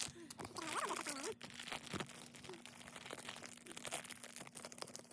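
Small plastic toy packages crinkling and tearing as they are pulled open by hand, a dense, irregular crackle throughout.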